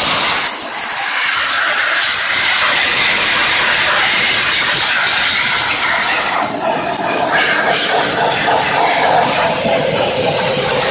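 High-pressure steam jet from an electric steam cleaning machine hissing steadily as it blasts a car engine, the hiss changing in tone briefly about six seconds in.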